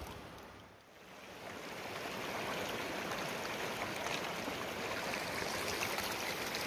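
Shallow, stony river running fast over rocks: a steady rush of flowing water, quieter for the first second or so.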